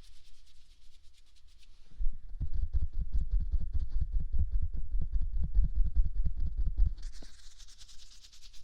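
Close-up rubbing and scratching on a binaural microphone. Faint light scratching turns, about two seconds in, into about five seconds of loud, rapid, deep rubbing strokes, then eases back to faint scratching near the end.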